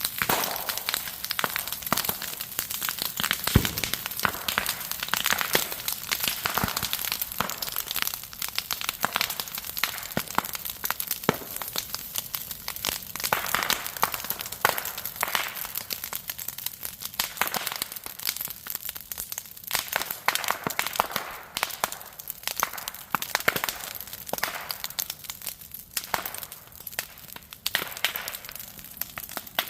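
Green bamboo burning in a fire: constant crackling with frequent sharp pops, like small firecrackers, as heated moisture and air inside the stalks burst them open.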